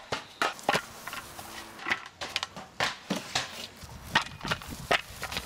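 An irregular run of sharp clicks and knocks, several a second, on hard material.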